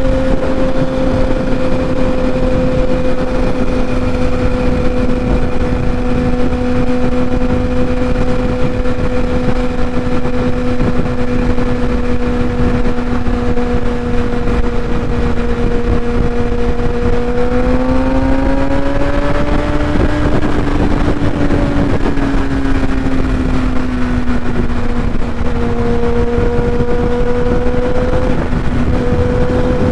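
Kawasaki ZX-10R's inline-four engine with a Graves titanium race exhaust, cruising at freeway speed as a steady drone over heavy wind noise on the microphone. About eighteen seconds in the engine note rises as the throttle is rolled on, then settles back down a few seconds later.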